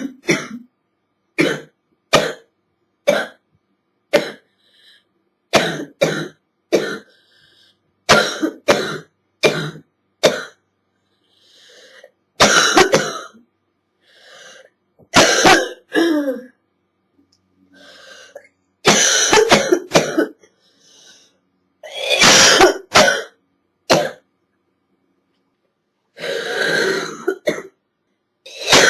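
A girl's hacking cough from a chest cold: many short, sharp coughs, some single and some in quick pairs, with several longer coughing fits lasting a second or more.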